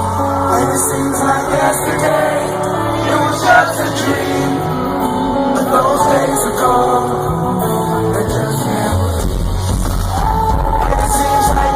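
Live concert music with singing over the band and backing track, heard through a fan's recording in a large venue. The deep bass drops out about a second in and comes back near the end.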